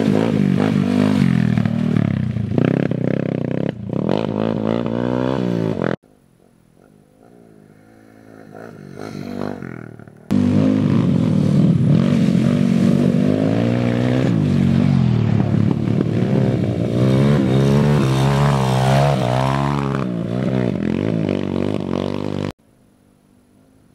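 Dirt bike engines revving, their pitch rising and falling with the throttle, broken by abrupt cuts. About six seconds in there is a quieter gap of some four seconds, in which a sound swells before the engines return at full level. Near the end they cut off again.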